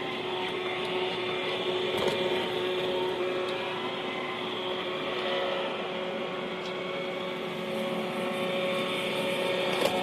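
iRobot Roomba i3 robot vacuum running: a steady whirr of its vacuum motor and brushes with a constant hum, picked up close from on top of the robot. A light knock about two seconds in.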